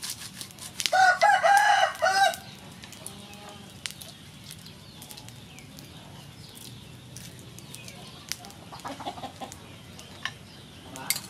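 A rooster crowing once, about a second in, for about a second and a half. Light clicks of snail shells being handled in an aluminium pot come and go around it.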